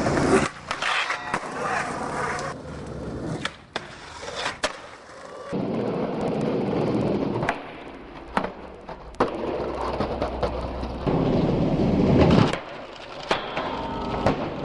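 Skateboards on concrete: stretches of wheels rolling and trucks grinding along metal handrails, broken by several sharp clacks of boards popping and landing.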